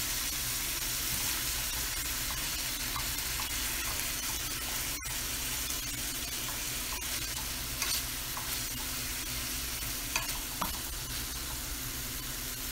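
Ground beef, red onions and peppers sizzling steadily in a stainless steel frying pan while a plastic slotted spatula stirs and scrapes through them, with a few light clicks in the second half.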